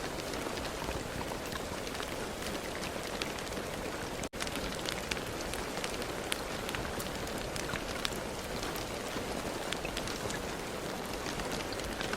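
Steady rain falling, with many single drops ticking sharply on a surface. The sound drops out for an instant about four seconds in.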